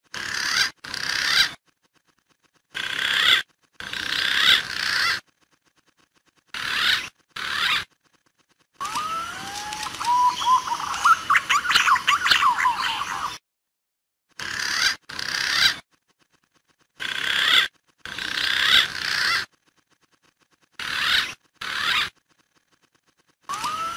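Recorded punai (green pigeon) lure calls: short bursts of whistling, warbling calls and chirps with abrupt silent gaps between them. From about 9 to 13 seconds in comes a longer run of rising and falling whistles.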